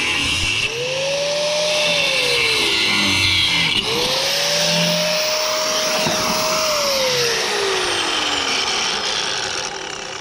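Handheld power tool working on scrap metal: its motor spins up, runs, and winds down twice, with a harsh cutting or grinding noise over it.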